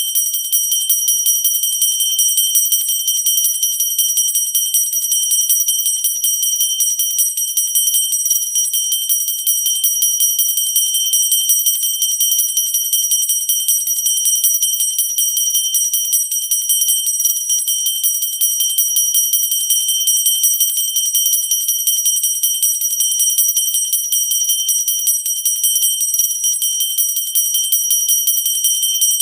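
Pooja bell rung continuously and fast, the clapper striking over and over so the high, bright ringing never dies away.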